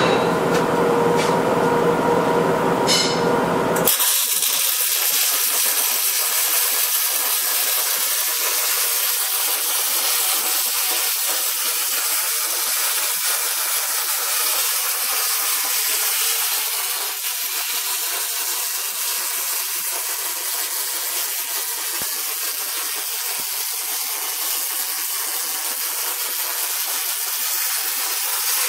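A humming tone with a few clicks, then about four seconds in the wire-feed (MIG) welding arc strikes and runs on as a steady hiss. The arc is laying the circumferential seam weld on a torque converter turning in an ATI CW3 converter welding machine.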